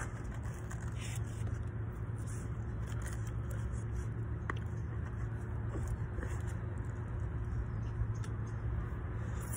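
Plastic fork scraping and picking through chili cheese fries in a foam takeout container, with faint clicks, over a steady low rumble.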